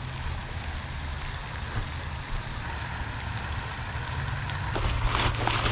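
Steady splashing of a pond fountain's spray, with a run of louder clicks and knocks near the end.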